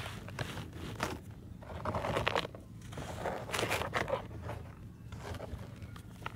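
Hands crumbling and rubbing dry, powdery dirt chunks: gritty crunching and scraping in several short bursts, with loose dirt trickling down.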